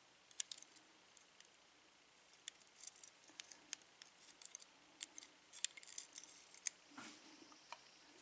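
Steel tweezers clicking and scraping faintly against a brass Sargent lock cylinder as springs and pins are pulled from its pin chambers, in scattered sharp ticks, with a short rub about seven seconds in.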